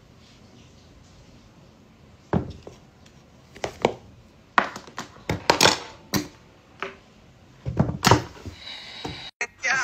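A string of knocks and thuds: a phone and a sneaker being handled and set down on a glass tabletop, in a small quiet room. The knocks come singly and in quick clusters from about two seconds in until near the end.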